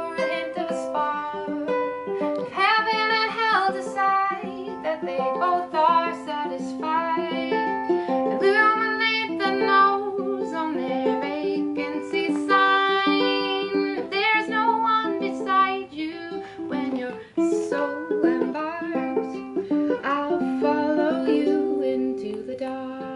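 Ukulele playing an instrumental break between sung verses, a continuous run of picked notes.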